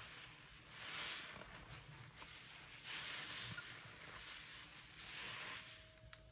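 A foam-laden sponge squeezed over and over in thick suds of pine cleaner: soft squishing and fizzing of lather that swells about every two seconds. Near the end the squishing stops and a faint steady tone begins.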